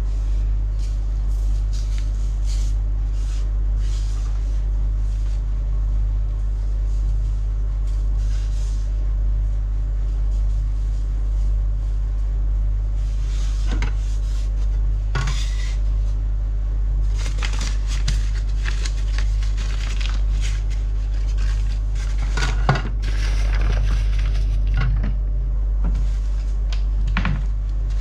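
Kitchen work sounds: scattered knocks and clatter of dishes and utensils, busiest in the second half, over a steady low hum.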